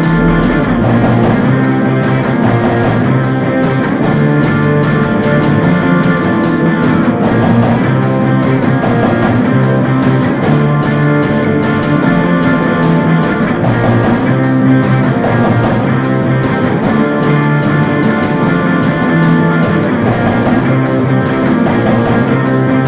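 Rock music led by guitars over a steady drum beat.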